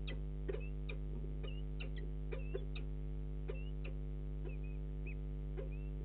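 Steady electrical mains hum from the camera's audio, with scattered short clicks and brief high chirps from birds at the nest during a prey handover.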